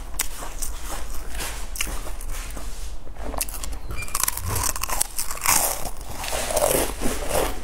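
Close-miked crunching and chewing of stacked potato crisps: many sharp, crackly snaps. They grow louder and denser after a fresh bite about four seconds in.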